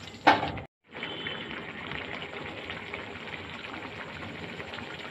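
A spatula knocks once against a metal kadai, then after a short break comes a steady, fine sizzling hiss from the thick paneer and potato curry bubbling in the pan.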